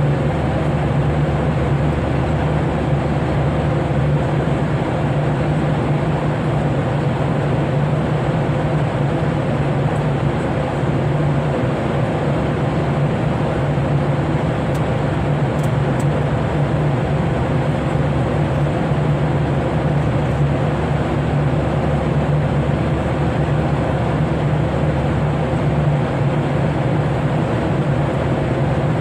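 Steady aircraft cabin noise in flight: an even rush of air and engine noise with a constant low hum underneath.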